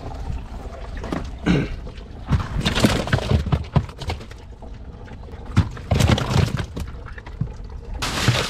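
Fish and crushed ice being handled into a boat's plastic fish box: irregular knocks, crunches and rattles, turning into a steady hiss near the end as ice starts to tip from a sack over the fish.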